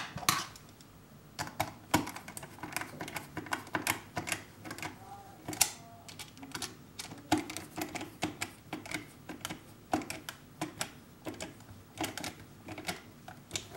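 Small screwdriver turning screws into the plastic base of a Microsoft IntelliMouse Optical: irregular light clicks and ticks, a few a second.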